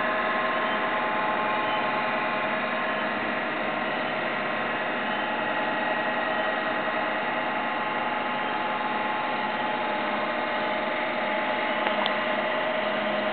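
Heidelberg ChromaGraph S3400 drum scanner running a prescan, its small scanning drum spinning empty with no film mounted: a steady mechanical whir with several steady whining tones over it.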